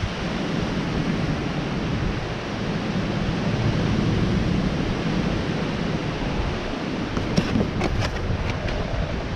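Wind blowing across the microphone: a loud, low, gusting rumble with no pitch to it. A few short clicks sound near the end.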